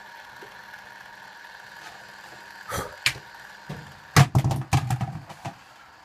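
Bendix 7147B front-loading washing machine in its main wash: a steady motor hum with knocks and thuds, a pair about three seconds in and a quick cluster of louder ones about four seconds in, as the drum turns the wet load.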